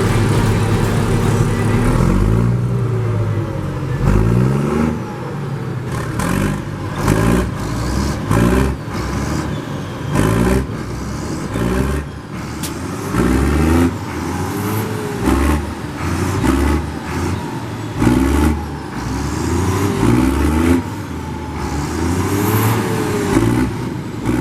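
International Harvester 1455 XL tractor diesel engine being revved hard in repeated short blips, its pitch rising and dropping back about a dozen times.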